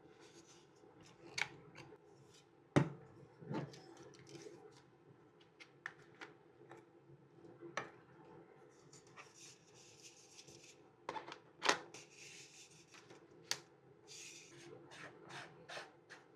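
Hands handling a new camera and its packaging: scattered clicks and taps, with two spells of rustling from wrapping or bags.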